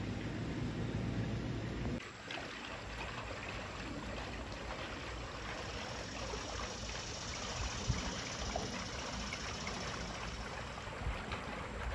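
Distant aircraft passing high overhead, a steady even rushing noise. Wind buffets the microphone with a low rumble that drops away about two seconds in.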